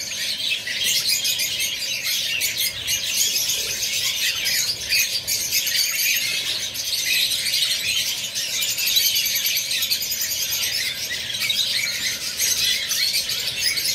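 A flock of lovebirds chattering in a constant stream of overlapping high-pitched chirps and squeaks.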